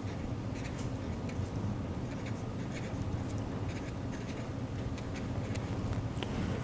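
Pen writing on paper: a run of short, irregular strokes over a steady low hum.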